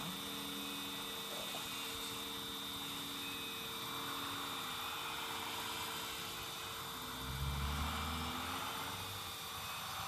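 Radio-controlled 1:14.5 scale Liebherr R956 excavator's hydraulic pump and electric motors running with a steady whine as the machine swings and raises its loaded bucket. About seven seconds in, a louder, deeper hum rises for about two seconds.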